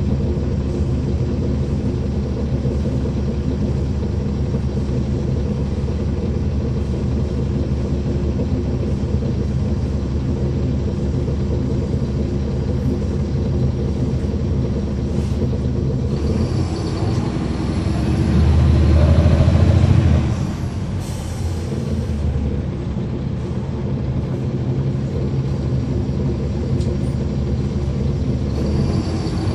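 Interior sound of a NABI 40-SFW transit bus with a Caterpillar C13 ACERT diesel engine, running steadily. Around the middle it grows louder for a few seconds, followed by a short air hiss.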